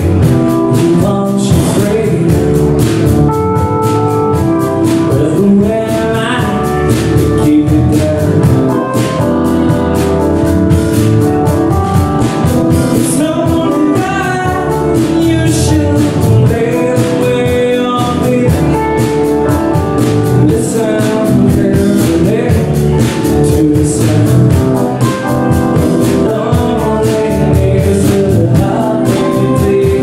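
Live band playing a song: drum kit, electric guitars and keyboard with a sung lead vocal, at a steady tempo without a break.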